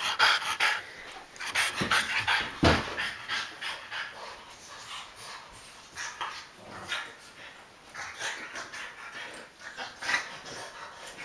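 Dogs panting rapidly while they play-wrestle: a quick, irregular run of breaths, loudest in the first three seconds.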